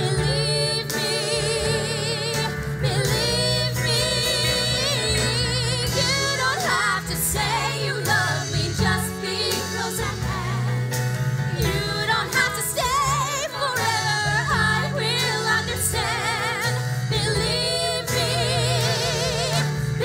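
Women's voices singing a 1960s-style pop number with wide vibrato over a live band with a steady bass line.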